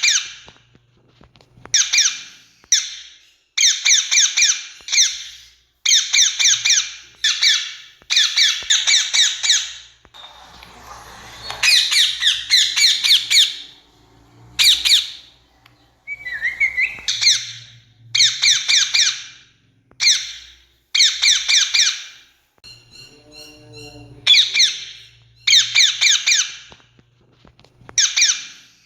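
Rose-ringed parakeets giving loud, shrill, screeching calls, each call a quick burst of several harsh notes, repeated again and again with short gaps. About two-thirds of the way through there is a brief, softer sound of a different kind.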